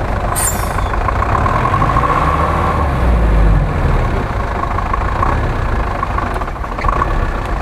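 GAZ-66 truck's engine running while the truck sits stuck in deep mud. The engine swells louder for about a second, around three seconds in, and a steady high whine runs over it.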